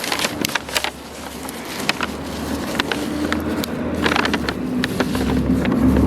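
Crinkling and light clicks of wrapping being handled as a piece of pottery is unwrapped, over the low hum of a vehicle engine that grows louder toward the end.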